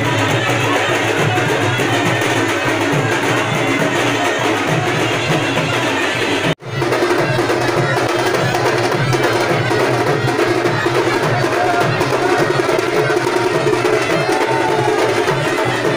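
Loud, steady rhythmic drumming with music, the beat repeating evenly throughout; the sound cuts out for an instant about six and a half seconds in, then resumes.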